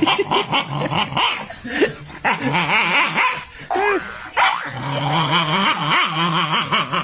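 A dog vocalizing: a run of short barks and yelps, then a long wavering growl in the second half.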